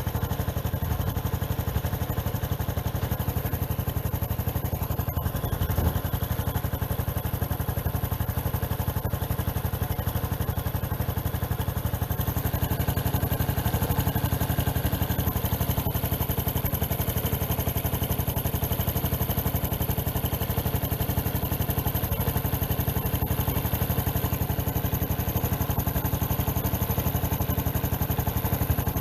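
Honda Cross Cub's single-cylinder four-stroke engine idling steadily just after a repair, running with an abnormal noise. It stops abruptly at the end.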